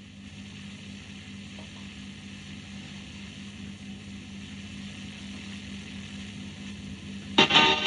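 Dead air on an FM radio broadcast: a steady hiss with a faint low hum while no programme is going out, until music cuts back in loudly near the end.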